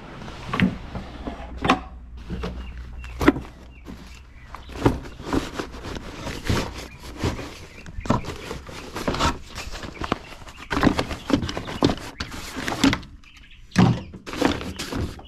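A run of irregular knocks and thuds, roughly one every second, over a low steady hum that fades away about four seconds in.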